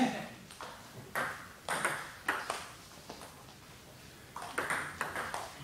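Table tennis ball clicking sharply off bats and tables: a run of hits, a pause of about a second and a half past the middle, then a serve and quick exchange start up again.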